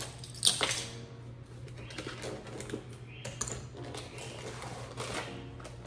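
Dry pancake mix scooped and poured from a cardboard box into a measuring cup: rustling and scraping with small irregular clicks, and a sharper knock about half a second in.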